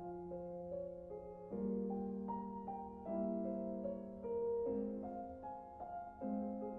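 Slow, calm instrumental piano music, with single notes and soft chords struck every half second to a second and left to fade.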